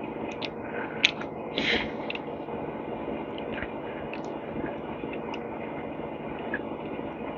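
Small metal parts of a disassembled electric engine starter being handled: light clicks and taps, a sharp click about a second in, then a brief scraping rustle, over a steady background hum.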